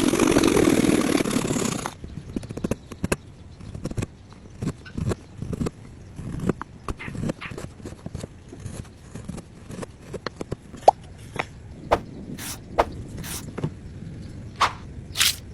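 Woodworking handling sounds: about two seconds of loud, even noise at the start, then scattered light knocks, taps and scrapes as pieces of wood are worked and fitted.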